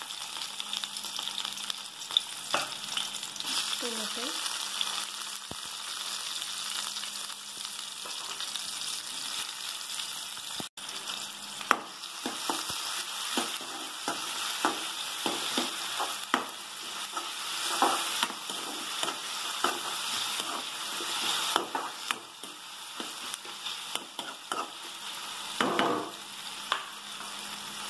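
Chopped onion and tomato sizzling in hot oil in a metal kadai. From a little under halfway on, a metal ladle stirring and scraping against the pan adds many short scrapes and knocks over the sizzle.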